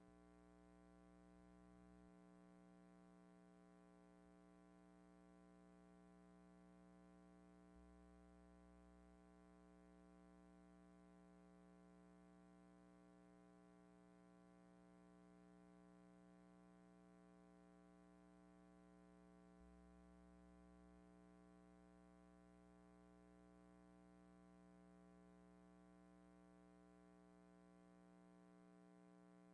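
Near silence: only a faint, steady hum with no other sound.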